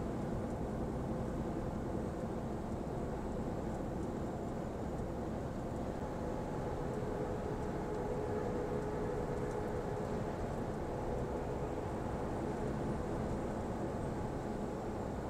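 Steady engine and road noise heard from inside the cab of a Mercedes-Benz truck cruising at highway speed, with a low hum that grows a little stronger around the middle.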